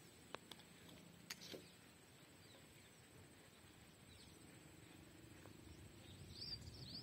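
Near silence: faint outdoor background with a thin steady high tone, a few soft clicks in the first two seconds, and a couple of short faint high chirps near the end.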